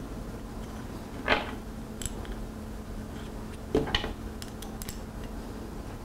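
Metal rack hardware being handled during assembly: two short scrapes, about a second in and again near four seconds, with a few small ticks between.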